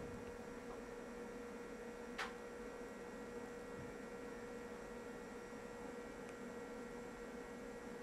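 Steady electrical hum with a faint steady tone from bench electronics, and a single short click about two seconds in.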